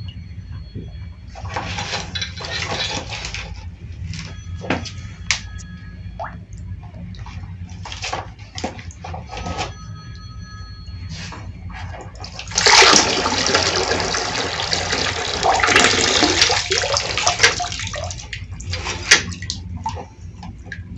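Water draining from the level-control trainer's upper tank down a hose and splashing into a plastic reservoir tub. It comes in gushes, and the heaviest rush lasts about five seconds past the middle. A steady low hum runs underneath.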